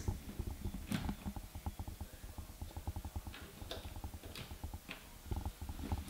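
Plastic child-safety covers being pushed into a power outlet's pin holes: a few light plastic clicks, about a second in and again around four to five seconds, over soft rustling handling noise.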